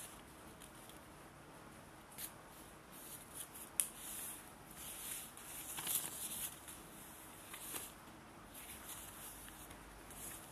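A sheet of origami paper rustling and crinkling as hands fold it in half and press down the crease, with one sharp tick a little under four seconds in.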